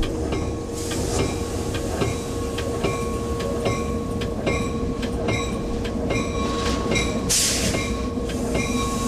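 Inside the cab of an EMD F59PH diesel locomotive, the engine runs with a steady hum and rumble. Sharp metallic strikes repeat every half second or so, and a brief hiss comes about seven seconds in.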